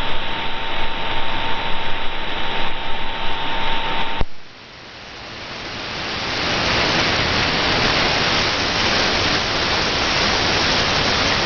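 Shortwave radio static on 11800 kHz: a steady hiss with a thin whistle tone. About four seconds in, a click and a sudden drop, then the hiss swells back over a couple of seconds, wider and steady: the station's carrier has gone off the air and only band noise remains.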